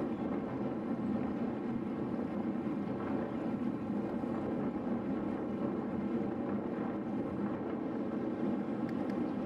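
Steady wind noise rushing over the microphone of a camera on a moving road bicycle.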